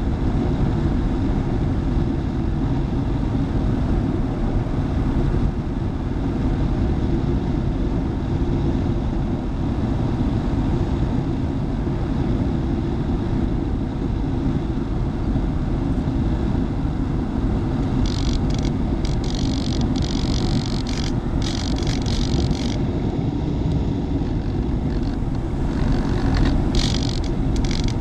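Steady low rumble of wind rushing over the microphone during an FPV model airplane's flight, with a brighter hiss coming and going from about two-thirds of the way in and again near the end.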